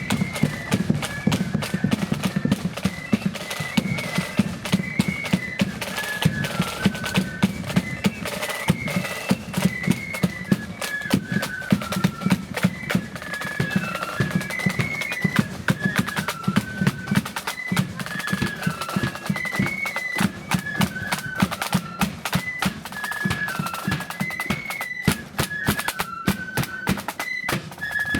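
Marching flute band playing a tune: a high flute melody moving in steps over a continuous rattle of snare drums and heavy bass drum beats.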